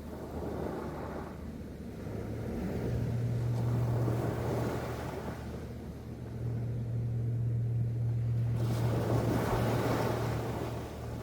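Sea waves washing in, swelling and fading in two long surges, with a steady low engine hum running under them from about a second and a half in.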